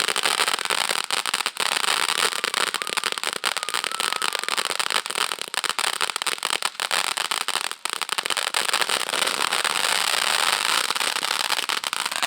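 Firecrackers going off in a rapid, unbroken crackle of many small bangs.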